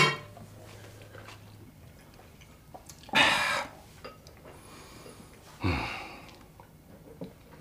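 Two short, breathy sighs, about three seconds apart, each lasting about half a second, in a quiet room.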